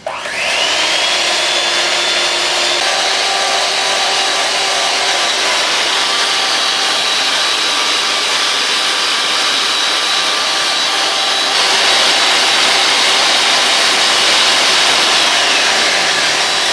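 Handheld electric mixer running at speed, its beaters whipping egg whites in a glass bowl: a steady motor whine that spins up in the first second and gets slightly louder about two-thirds of the way in.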